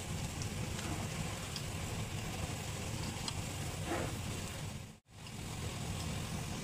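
Paratha sizzling in oil on a flat iron tawa, with steel tongs pressing and scraping it, over a steady low hum. The sound cuts out for an instant about five seconds in.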